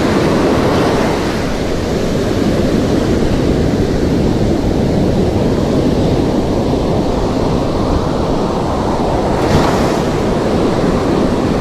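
Large ocean waves breaking on the beach: a steady, loud wash of surf, with a brief louder surge about nine and a half seconds in.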